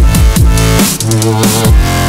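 Loud electronic background music with a heavy bass line whose notes slide down in pitch about twice a second.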